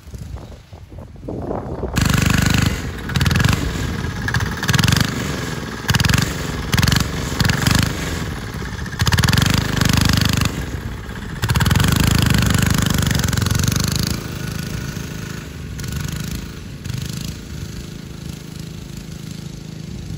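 Small 196cc single-cylinder diesel engine on a go-kart under throttle. About two seconds in it picks up sharply, surging up and down in repeated bursts as the kart drives past close by. It then fades as the kart moves off.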